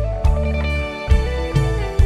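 Instrumental break of an Isan Thai song played live through a rot hae sound-truck system: a guitar melody over heavy bass and regular drum beats.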